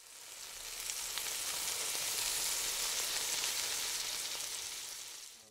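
Food frying in a hot pan: a steady, hissing sizzle with a few faint crackles that swells in over the first second and eases off before cutting out.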